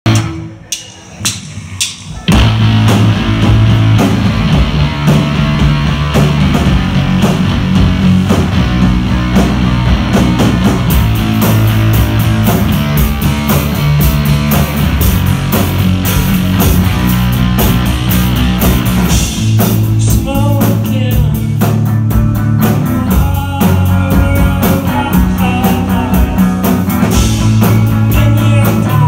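Live rock band playing a song on electric guitars and drum kit. After a few separate sharp hits, the full band comes in loud about two seconds in.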